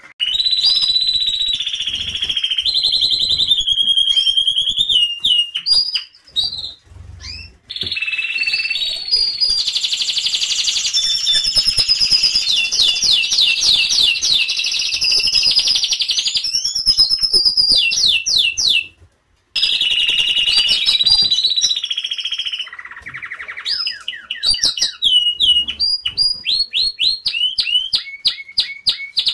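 Domestic canaries singing, high-pitched: long rolling trills and fast runs of repeated notes with gliding phrases between them. There is a short pause about six seconds in and a moment of silence about two-thirds of the way through.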